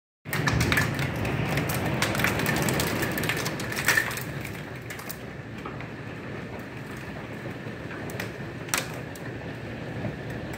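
Hail and rain pelting the house and wooden deck: many sharp ticks over a steady rush of wind and rain. The hits are thickest and loudest for the first four seconds, then thin out to scattered ticks, with one sharp crack near the end.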